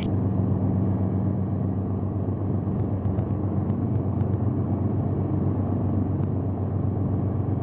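Hughes 269B helicopter's Lycoming four-cylinder piston engine and rotor running, a steady low drone.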